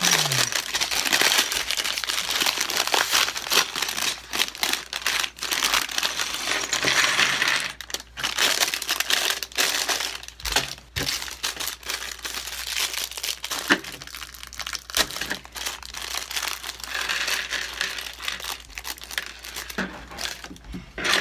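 Plastic and cardboard Lego set packaging crinkling and rustling as it is opened and handled, with many small sharp clicks and rattles.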